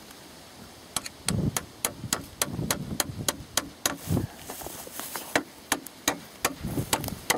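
Wooden pole jabbed repeatedly into the earth around a wooden fence post to tamp the soil firm: a quick run of sharp knocks, about three a second, with some duller thumps, starting about a second in.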